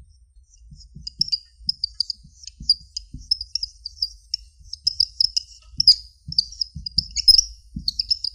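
Dry-erase marker squeaking on a whiteboard as Chinese characters are written: a quick run of short, high squeaks, one per stroke, with soft low knocks of the marker tip meeting the board.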